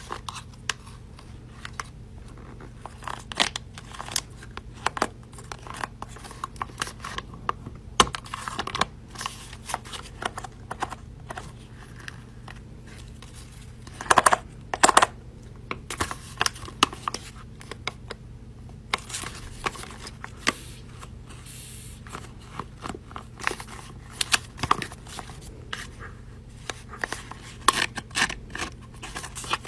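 Irregular handling noises: crinkling, tearing and scattered sharp clicks, with a few louder clusters of crackling, over a steady low hum.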